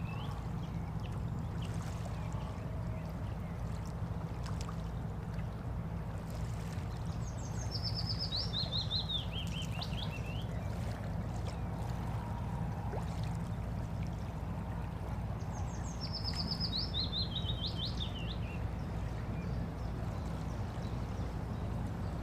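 Waterside ambience: a steady low wash of moving water, with a small songbird twice singing a run of quick notes that step down in pitch, each phrase about three seconds long.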